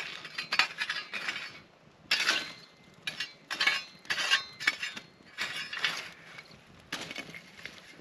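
A small metal shovel scraping and jabbing through the embers and charred logs under a campfire grill grate, in a dozen or so short, clattering strokes with the crunch of burnt wood breaking up.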